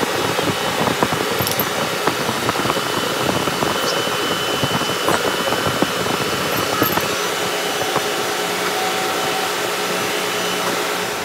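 Steady, loud machinery noise with several constant humming tones, over which come scattered light metallic clicks and knocks as the dismantled fuel pump's housing and shaft are handled on the bench.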